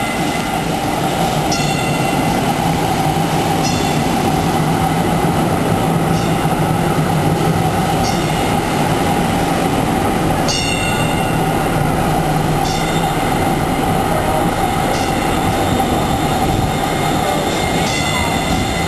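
Kinkisharyo light rail train pulling into a station and slowing. A steady rolling and motor hum, with short high-pitched squeals that recur every couple of seconds.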